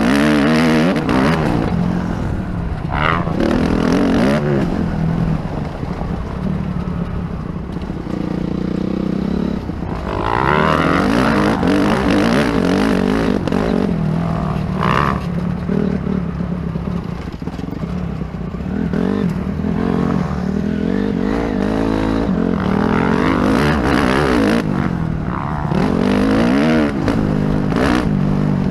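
Dirt bike engine ridden hard on a motocross track, heard from the rider's helmet. Its pitch rises and falls again and again as the throttle opens and closes.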